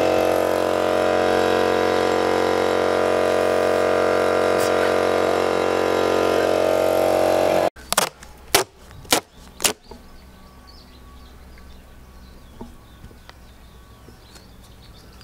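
An air pump's motor running with a steady buzzing hum while inflating an inflatable boat, cut off abruptly about halfway through. Then duct tape is pulled off the roll in four quick, loud rips, followed by quiet outdoor background.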